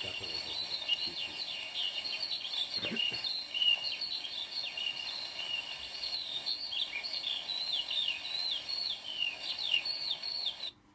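Archival field recording of bird song played back: many short, high chirps that sweep downward, over a steady hiss.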